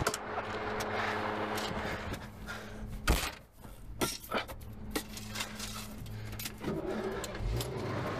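Car engine idling, with a car door slammed shut about three seconds in; after the slam the engine is heard muffled, as from inside the cabin, and grows stronger near the end.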